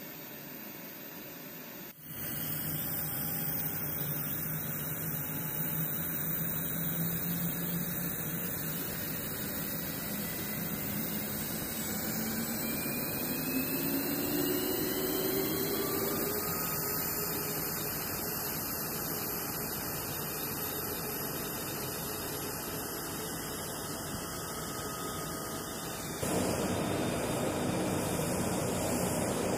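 Steady jet engine noise on a flight line, with a whine that rises in pitch partway through. It gets abruptly louder about two seconds in and again near the end.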